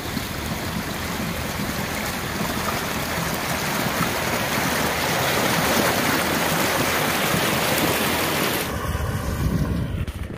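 Rushing, churning water of the prop wash and wake behind a jon boat driven at top speed by an ePropulsion Spirit 1.0 Plus electric outboard, a steady hiss of water. Near the end it changes to a softer, lower wash of the wake.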